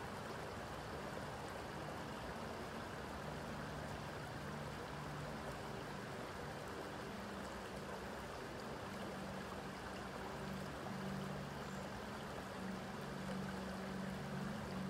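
Creek water running steadily over rocks, an even rushing hiss. A low steady hum joins about three seconds in and is strongest in the last few seconds.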